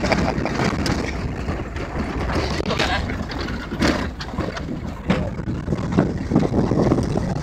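Pickup truck driving over a rough dirt road, heard from the open back: steady engine and road rumble with wind buffeting the microphone and occasional knocks and rattles.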